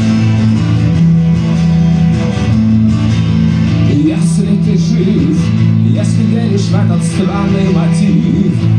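Live song with strummed guitar over steady sustained low notes. A voice comes in singing about halfway through.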